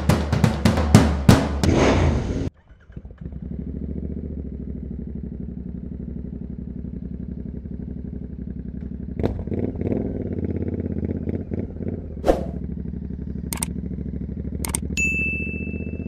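Drum-kit music cuts off sharply about two and a half seconds in. After that a Royal Enfield Continental GT 650's parallel-twin engine, fitted with an Emgo cafe muffler, runs steadily at low revs, with a few sharp clicks in the second half and a short bright notification chime near the end.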